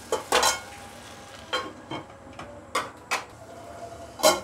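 A spatula knocking and clinking against a kadhai, about seven separate sharp strikes at uneven intervals, the loudest near the end.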